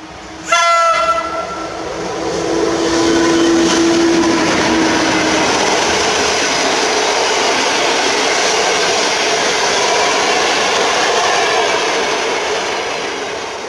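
EP09 electric locomotive sounds one short horn blast about half a second in: the Rp1 'attention' warning signal. It then passes at speed hauling passenger coaches, with loud, steady wheel-on-rail noise and clickety-clack that fades near the end.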